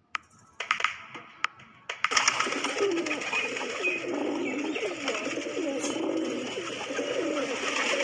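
A flock of domestic pigeons cooing continuously, many rolling coos overlapping. A few sharp clicks come in the first two seconds, before the cooing sets in.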